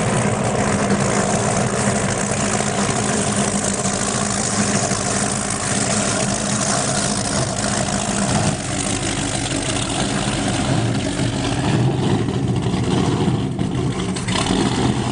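Powerboat engines running steadily at low speed, a deep even engine hum over a haze of wind and water noise, dipping slightly in level about halfway through.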